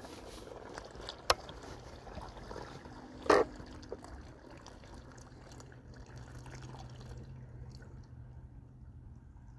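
Water trickling and lapping gently at a shallow lake edge, with a sharp click just over a second in and a short, louder plop a little past three seconds.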